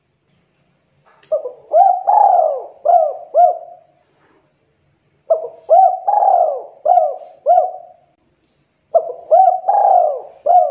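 Spotted dove (tekukur) cooing: three phrases of about five coos each, the third coo in each phrase drawn out longer than the rest, with a gap of a second or so between phrases.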